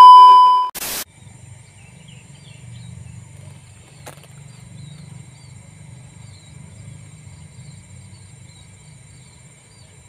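A loud, steady test-card beep, cut off by a short burst of static about a second in. Then quiet outdoor ambience: scattered short bird chirps over a steady high insect buzz and a low rumble, with a single sharp click about four seconds in.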